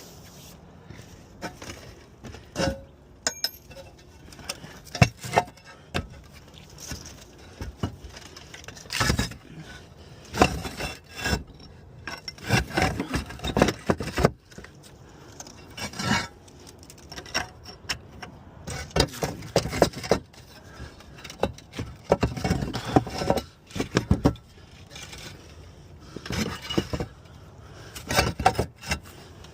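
Roof tiles being handled and shifted during a tile roof repair: irregular clinks, knocks and scraping, hard pieces striking and rubbing against each other.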